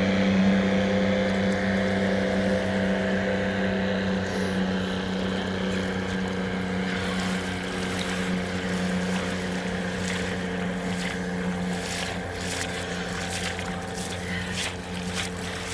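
Outboard motor of an inflatable boat running at a steady pitch, slowly getting fainter. Toward the end, splashes as someone wades out of shallow water.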